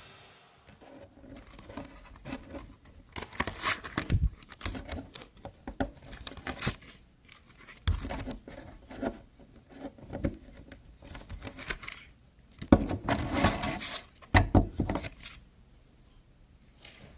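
Irregular handling noise in a small room: clusters of rustling, scraping and sharp clicks that come and go, the busiest stretch a little past the middle, then quieter near the end.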